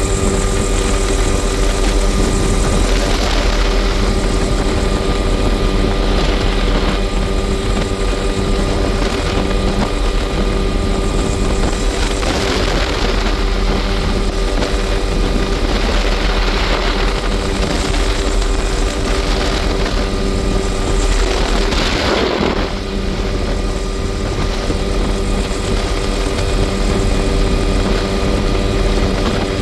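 Helicopter in flight, heard from inside the cabin with the doors off: steady engine and rotor noise with a constant whine, and rushing wind that swells every few seconds.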